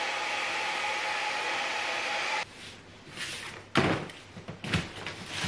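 Hand-held hair dryer running steadily with its motor whine, switched off suddenly about two and a half seconds in. After it come a few thumps and rustles as someone gets up and steps across flattened cardboard boxes.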